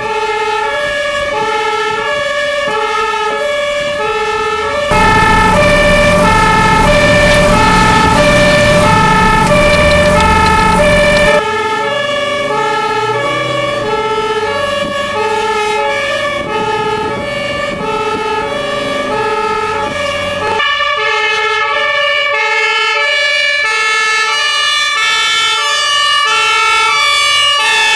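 German two-tone fire-engine siren (Martinshorn) alternating steadily between a high and a low note, over fire-truck engine and road noise. The engine and road noise grow much louder about five seconds in and drop back about six seconds later.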